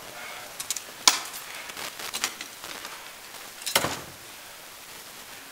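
Rattan sword blows landing in armoured heavy-combat sparring: a handful of sharp clacks and knocks, the sharpest about a second in and a heavier, deeper one near four seconds.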